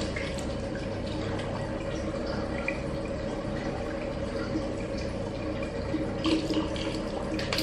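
Bathroom tap running steadily into a sink while face wash is lathered and rinsed, with a few small splashes near the end.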